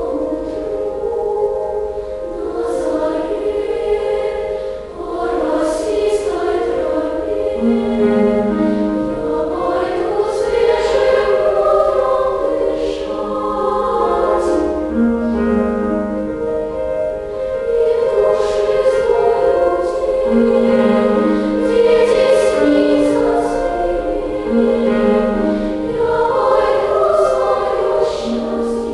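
Female choir singing in parts with piano accompaniment, the voices holding long notes while lower notes enter every few seconds.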